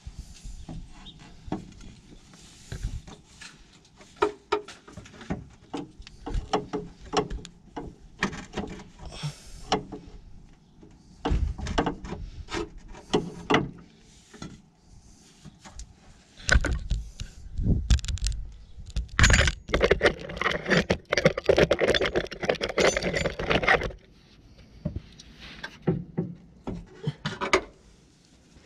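Irregular clanks, knocks and scrapes of metal suspension parts and tools being handled under a car, with a dense run of loud rattling clatter a little past halfway through.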